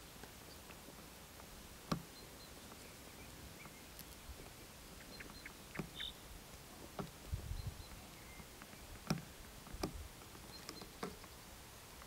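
Faint outdoor ambience: a quiet steady hiss with scattered sharp clicks, the loudest about two seconds in and about nine seconds in, a short high bird call near the middle, and a brief low rumble a little after it.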